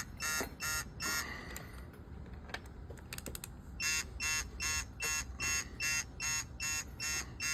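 Digital torque wrench beeping, about three short electronic beeps a second, as a cylinder-head stud is pulled up to its set torque. The beeping stops for a couple of seconds about a second in, with a few faint clicks, then starts again and runs on.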